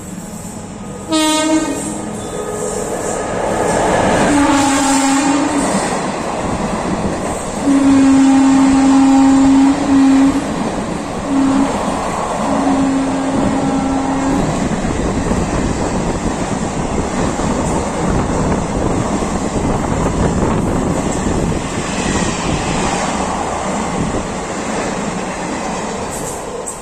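Passenger train running through a station, its locomotive horn sounding repeatedly: a short blast about a second in, then longer blasts around the fifth, eighth to tenth and thirteenth seconds. Under the horn the coaches' wheels keep up a steady rumble and clickety-clack as the train goes by.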